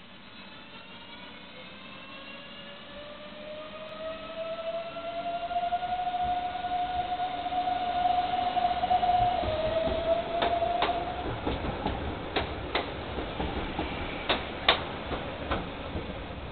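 CAF-UTA 3700 electric light-rail unit pulling away: the electric traction whine rises in pitch, levels off, then drops a little about halfway through. After that come a string of sharp clacks from the wheels on the track as the cars pass.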